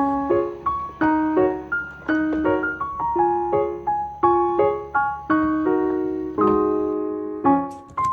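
Background music: a piano melody played note by note at a light, steady pace.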